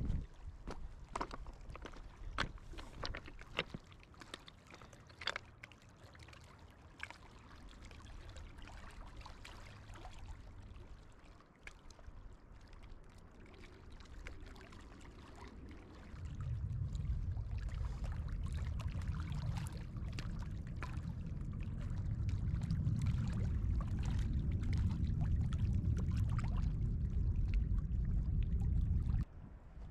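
Small waves of a lake lapping and trickling among shoreline stones, with many small irregular splashes. A steady low rumble joins about halfway through and stops suddenly near the end.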